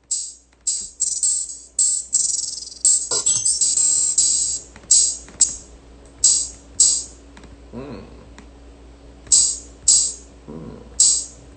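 Drum-machine beat stripped down to bright, high percussion hits, hi-hat-like, tapping out an uneven pattern with short gaps and little bass or melody under them.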